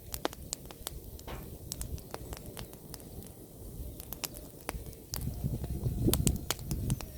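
Bonfire of pruned apple branches crackling, with irregular sharp pops and snaps over the low sound of the burning. About five seconds in, a louder low rumble joins the crackle.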